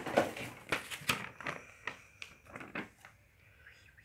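Handling noise: light clicks and paper rustling as the model kit's instruction manual is picked up and leafed through, dying away after about three seconds. Near the end come a few faint high chirps.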